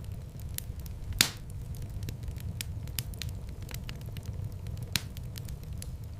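Wood fire in a fireplace crackling, with a steady low rumble of flames under scattered small crackles. A sharp, loud pop about a second in and another near the end.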